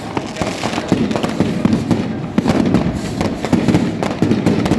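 Fireworks and firecrackers going off without a break: many sharp bangs and cracks following close on one another, overlapping into a continuous crackle.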